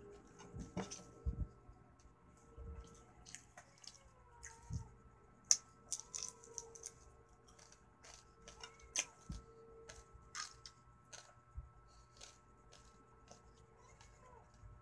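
Eating sounds of a person eating rice and fish by hand: wet lip smacks, chewing and small mouth clicks scattered irregularly, the sharpest click about five and a half seconds in.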